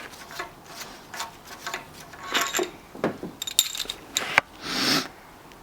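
Scattered metal clinks and clanks of hand tools and engine parts being handled during a Honda K-series engine teardown, with a brief scrape near the end.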